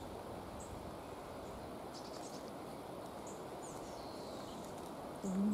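Quiet garden ambience: a steady low outdoor hiss with faint high chirps and short falling whistles from small birds every second or two. A voice starts humming a low tone right at the very end.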